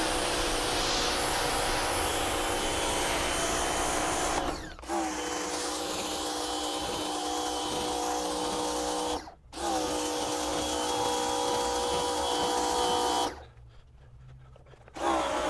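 Rock & Rocker 3000 PSI electric pressure washer running with a steady motor whine and spray hiss. It shuts off each time the trigger is let go and starts again almost instantly when it is pulled, spinning up with a short rising whine. It stops briefly twice, about five and nine seconds in, then falls quiet for about two seconds near the end before starting again.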